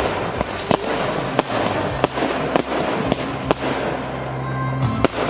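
Fireworks display going off: a quick string of sharp bangs, about two a second, over continuous crackling.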